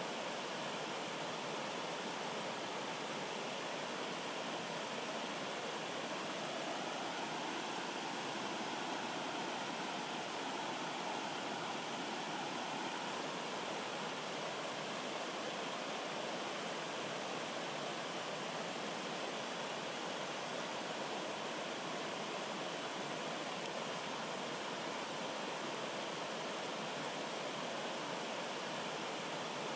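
Small rocky stream rushing and splashing over boulders in a series of little cascades, a steady, unchanging water sound.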